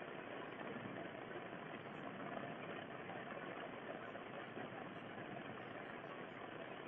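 Heavy rain falling steadily on a flooded lawn and trees, a constant even rush of noise.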